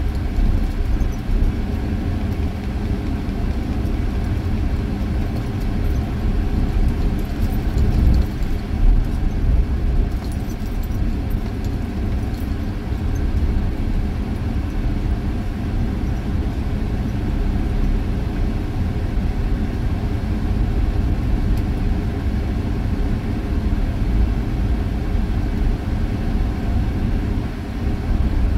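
Steady low rumble of a vehicle driving on beach sand, heard from inside the cab: engine and tyre noise, with a few faint rattles about a third of the way in.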